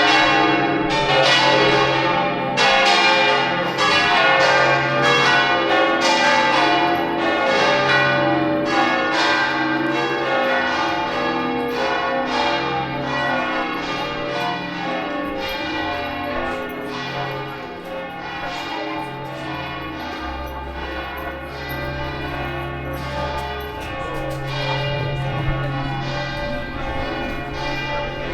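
Several church bells ringing together in a peal, with repeated strikes about every two-thirds of a second over a lingering hum; the separate strikes blur into continuous ringing in the second half.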